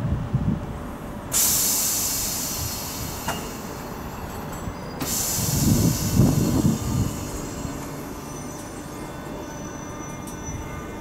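Class 319 electric multiple unit moving slowly out of the platform. A sudden loud hiss of air starts about a second in and fades over the next few seconds, then a low rumble of the wheels and bogies swells and dies away just past the middle.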